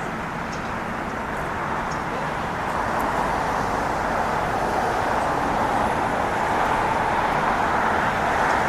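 Airbus A321neo's Pratt & Whitney geared turbofan engines at takeoff power: a steady jet roar that grows gradually louder.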